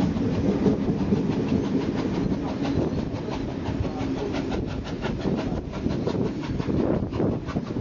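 Passenger carriage of a steam-hauled heritage train running along the track at speed: a steady rumble with a rapid rhythmic clatter of wheels on the rails, heard from an open carriage window.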